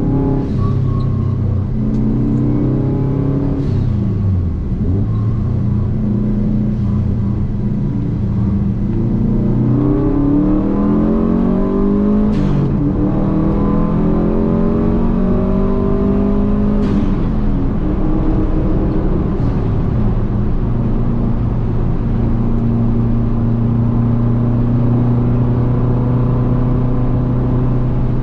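Car engine under hard driving, heard from on board. The revs drop about four seconds in, climb again with brief breaks between gears around the middle, then hold nearly steady near the end.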